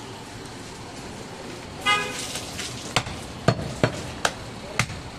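A heavy butcher's cleaver chopping goat meat on a wooden stump block, about five sharp chops in the second half. A short horn toot sounds about two seconds in.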